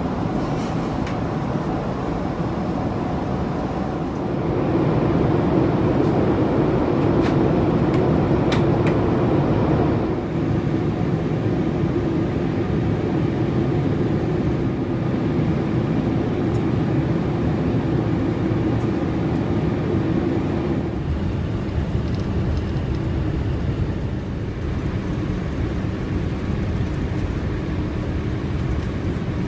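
Steady cabin rumble of a Boeing 787-8 airliner, engine and airflow noise heard from inside the cabin. It grows louder about four seconds in and eases about ten seconds in, and a steady drone in it stops about twenty-one seconds in.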